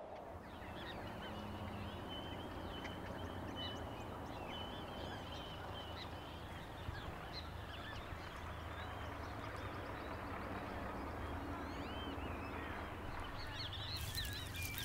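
Birds chirping and calling throughout, with a thin steady high trill during the first half, over a low steady rumble. A hissier layer of noise comes in near the end.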